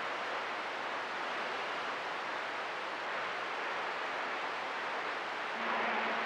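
CB radio receiver on channel 6 (27.025 MHz) giving a steady rush of static on an open channel with no station talking. Near the end a faint low hum comes in and the hiss gets a little louder.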